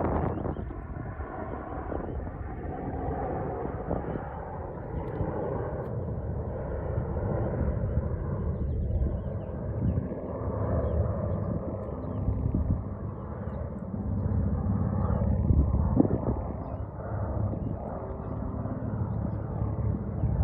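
V-22 Osprey tiltrotor flying by, a steady low rotor and engine drone that swells and eases, with some wind on the microphone.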